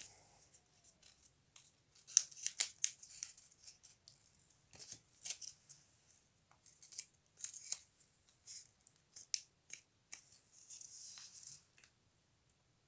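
Folded paper of an origami bunny rustling and crinkling as it is handled and creased, in irregular crackles with a denser cluster about two to three seconds in.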